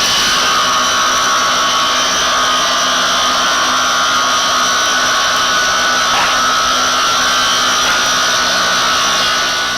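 Sawmill machinery running steadily, a constant high whine with a dense rushing noise underneath, easing off slightly near the end.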